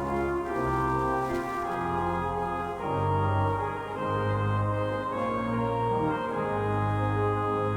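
Organ playing slow music in held chords over a bass line that moves to a new note about once a second.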